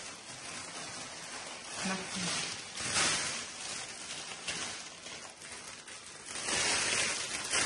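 Large sheet of clear cellophane crinkling and rustling as it is handled and gathered, with louder crackling about three seconds in and again over the last second or so.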